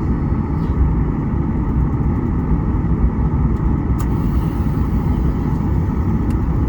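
Boeing 737 jet engines and airframe heard from inside the cabin: a loud, steady low rumble and roar, with one sharp click about four seconds in.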